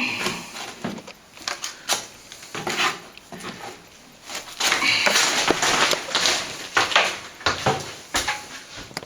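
A plastering tool scraping and tapping as cornice cement is scooped and spread on the wall, with scattered sharp clicks and a longer run of scraping in the middle.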